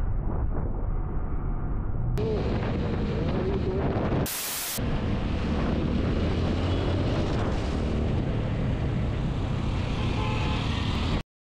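Motorcycle riding along a road at speed, picked up by a camera on the rider: steady wind rush with engine and tyre noise. The sound turns abruptly brighter about two seconds in, a brief hiss cuts in about four seconds in, and it all stops suddenly near the end.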